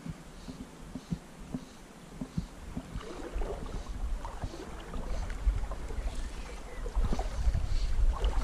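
Water sloshing and splashing around legs wading in a shallow river, with light knocks at first. It grows louder and busier from about three seconds in.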